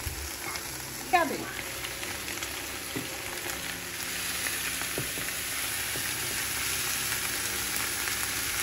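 Tuna with carrots, onion and celery frying in hot oil in a pan: a steady sizzle that grows a little louder from about four seconds in, as shredded cabbage is spooned in. A sharp knock about a second in and a few lighter clicks come from the metal spoon against the pan and bowl.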